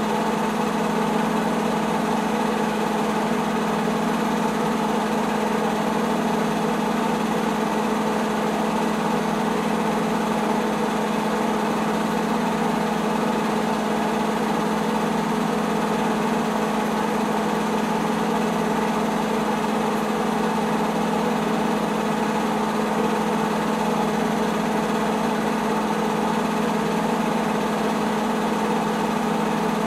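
Film projector running with a steady, unchanging mechanical whir and hum.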